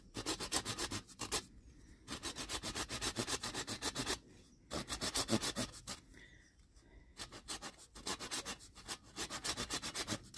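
Small hand saw cutting a shallow groove around a wooden hiking stick. It goes in runs of quick back-and-forth strokes, broken three times by short pauses as the stick is turned.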